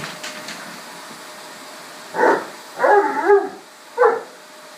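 A dog gives three short barks; the middle one is longer and wavers in pitch.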